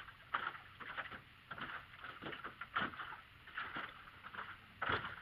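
Water lapping and slapping against the hull of a small aluminum boat under way, in irregular splashes about every half second.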